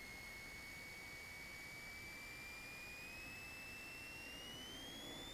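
Faint high-pitched electrical whine over a low hiss in a Cessna 172's headset intercom audio. It holds one steady pitch, then starts rising near the end.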